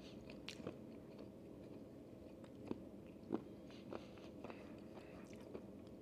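Faint mouth sounds of a person sucking and chewing a hard candy: a few soft clicks and smacks over quiet room tone.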